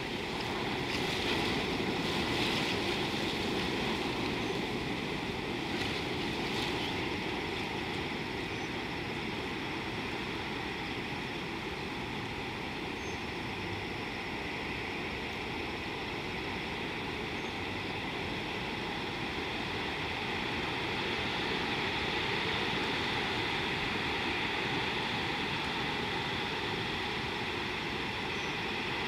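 Steady natural outdoor ambience: an even rushing noise under a constant high-pitched drone, with a few faint clicks in the first several seconds.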